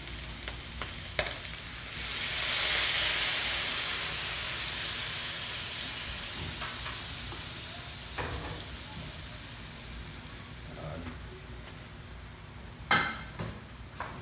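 Boiled broth poured into a hot steel wok of sautéed meat: a loud sizzling hiss swells about two seconds in and slowly dies down as the liquid heats. A sharp knock near the end.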